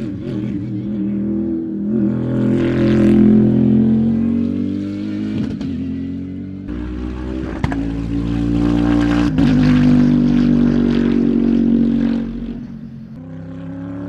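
Bentley Continental GT3 race car's twin-turbo V8 running hard on track, its note rising and falling as it accelerates and goes by. It is loudest about three seconds in and again around nine to ten seconds, with a brief sharp crack about seven and a half seconds in, and eases near the end.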